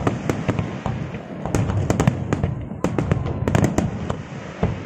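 Aerial fireworks display: many sharp bangs and crackles in quick, irregular succession over a dense low rumble from the bursting shells.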